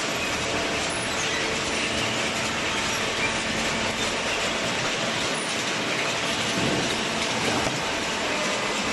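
Cardboard recycling baler at work: a steady, dense mechanical clatter with no pauses.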